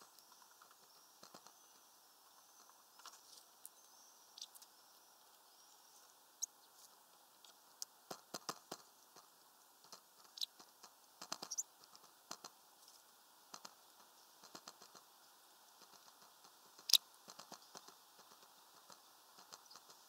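Irregular taps and ticks of rain drips on the window ledge and feeder, coming in scattered clusters, with one sharper tick near the end.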